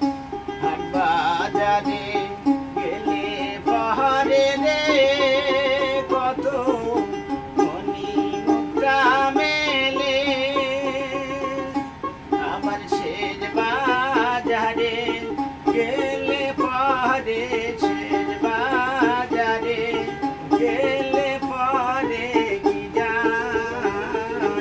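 Baul folk song: a male singer sings a melody with wavering held notes, accompanying himself on a plucked dotara, the long-necked Bengali folk lute.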